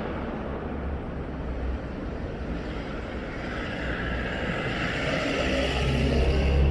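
A road vehicle in the street, growing louder over the last few seconds as it nears, over a steady low rumble.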